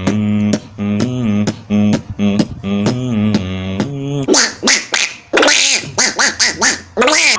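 Vocal beatboxing: mouth-made drum hits in a steady beat over a hummed bass line. About four seconds in, it changes to a different mouth-made effect with wavering, gliding pitches.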